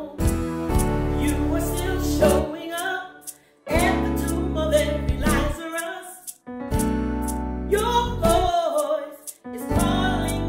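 A woman singing a gospel song over piano or keyboard accompaniment. The music drops out briefly a couple of times between phrases.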